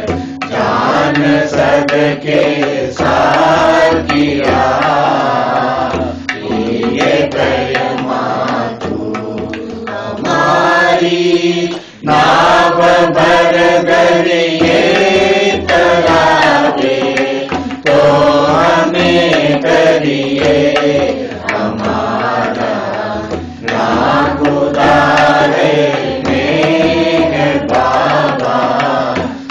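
Voices singing a Gujarati devotional arati, a sung hymn of praise, with a brief pause about twelve seconds in.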